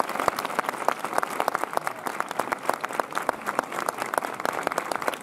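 Crowd applauding, with many overlapping hand claps.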